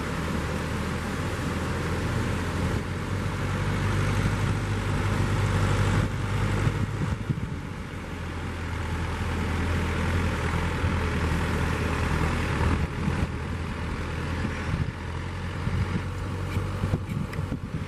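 An engine running steadily under a haze of wind and surf noise.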